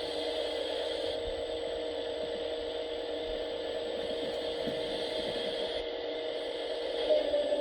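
Hydraulic pump of a 1/14-scale Volvo 360L RC excavator running with a steady whine. Near the end it gets louder and the pitch rises, as a function goes under load.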